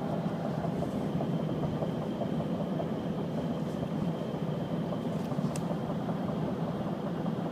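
Cab noise of a 2013 Ram 2500 with a Cummins diesel cruising at about 70 mph on cruise control: a steady low engine drone mixed with road and tyre noise.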